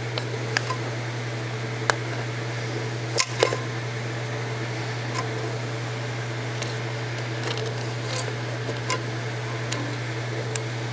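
Light clicks and scrapes of a wire paperclip being worked into the plastic terminals of a Ford EEC-IV self-test connector, with a pair of sharper clicks about three seconds in, over a steady low hum.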